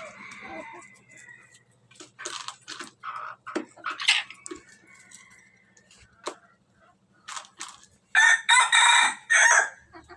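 A rooster crows once about eight seconds in, one long loud call, after a run of short clucks and sharp clicks.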